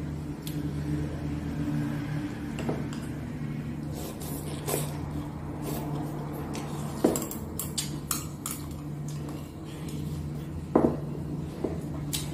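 Chopsticks and ceramic bowls clinking while someone eats: a scatter of light clicks, with two louder clinks about seven and eleven seconds in, over a steady low hum.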